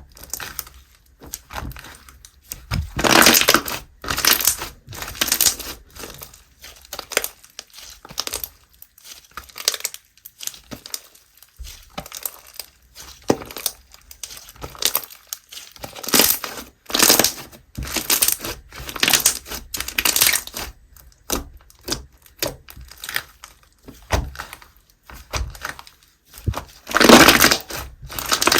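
Simbly Slime's Baby Strawberry Foam slime being squished, pressed and stretched by hand, giving quick clicky squelches and pops in irregular bunches, with louder bursts about three seconds in, around the middle, and near the end.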